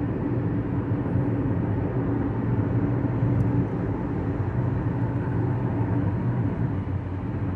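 Steady engine and road noise inside a Chevrolet Equinox's cabin while cruising at highway speed.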